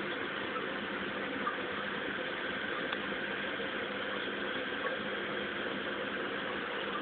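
Aquarium pump running: a steady low hum under an even hiss, with an occasional faint tick.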